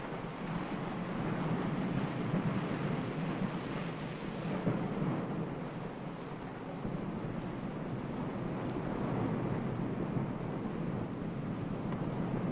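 A steady rushing noise with a low rumble that swells and eases slowly over several seconds, like surf or wind.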